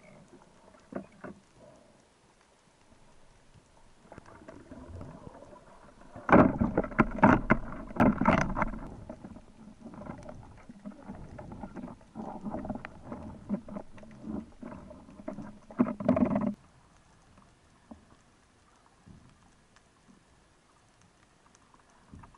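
Underwater audio through an action camera's waterproof housing: faint scattered clicking and crackling in the sea, broken in the middle by about ten seconds of louder rushing and sloshing water as the diver moves at the surface, which cuts off suddenly about sixteen seconds in.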